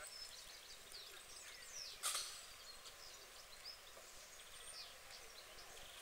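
Faint outdoor background of small birds chirping, with one sharp click about two seconds in.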